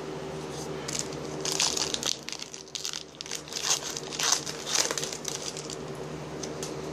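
Crinkling and tearing of a baseball card pack's wrapper as it is opened by hand, in several short bursts, over a steady faint hum.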